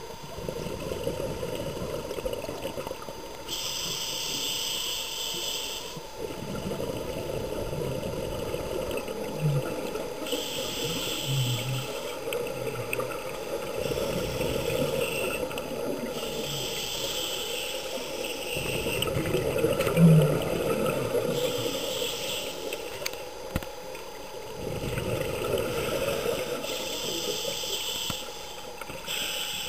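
A scuba diver breathing through a regulator underwater. Exhaled bubbles rush out in five bursts about six seconds apart, with a steady hiss and rumble between them. A few short low sounds come in the middle, the loudest about two-thirds of the way through.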